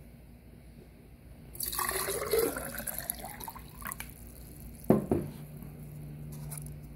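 Water being poured into a glass Mason jar, lasting about two seconds from roughly a second and a half in. A sharp knock comes near five seconds.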